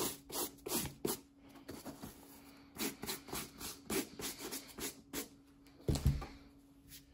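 Nylon brush dry-brushing a suede sneaker to clear off eraser crumbs: quick back-and-forth strokes about three a second, pausing for over a second after the first second, then a dull knock near the end.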